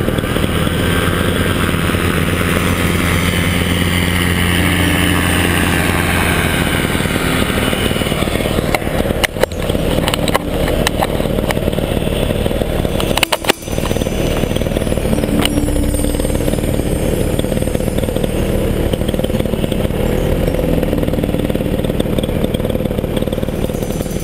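Paramotor engine and propeller running steadily under power during a foot launch, dipping briefly twice, about nine and thirteen seconds in.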